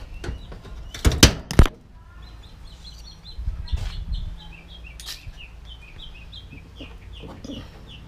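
A few loud sharp knocks about a second in, then a bird calling a rapid run of short chirps, about three or four a second, through the rest.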